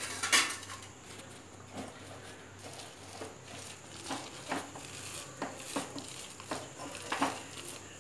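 A brief clatter of steel kitchenware, then hands squeezing and patting coarse-ground lentil vada batter in a steel mixing bowl: soft squelches and light taps against the bowl, coming every half second or so near the end.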